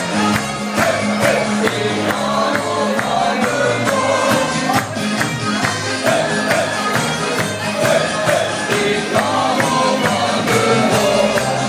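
Upbeat party music with a steady beat, a tambourine-like jingle and a bass line, with men singing along into microphones.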